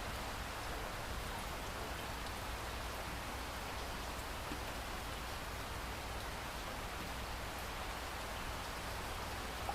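Heavy rain pouring steadily, an even hiss of falling rain with small drop ticks scattered through it.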